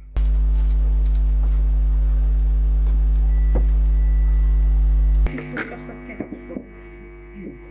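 Loud electrical mains hum at about 50 Hz, a steady low drone that starts abruptly and cuts off about five seconds in. A much quieter hum carries on under faint voices after it stops.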